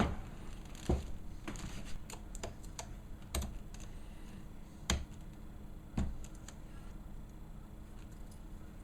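Irregular light clicks and knocks of a laptop display assembly being handled and turned over on a work surface, about eight in the first six seconds, then only faint background.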